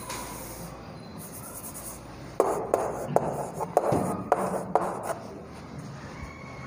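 Chalk writing on a blackboard: a quick run of sharp taps and scratchy strokes from about two and a half seconds in until about five seconds in, as a formula is chalked up.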